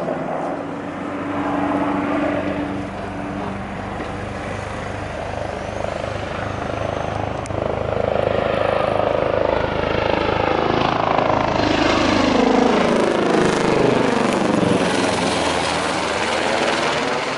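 Eurocopter EC725 Caracal, a twin-turboshaft helicopter, flying a low pass. Its rotor and turbine sound is steady at first, then grows louder, with sweeping shifts in pitch, as it comes overhead in the second half.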